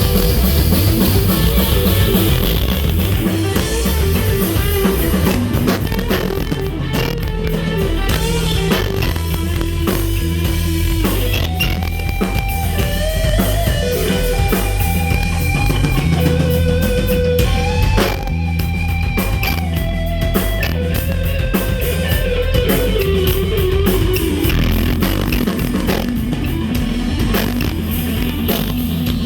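Live rock band playing an instrumental passage: an electric guitar holds long notes with pitch bends over a driving drum kit and bass.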